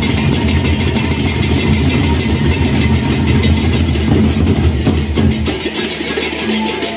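Gendang beleq ensemble playing: big gendang beleq drums beating under a dense, steady clashing of rincik hand cymbals. About five and a half seconds in the low drum beats drop away, leaving the cymbals and a few short pitched notes.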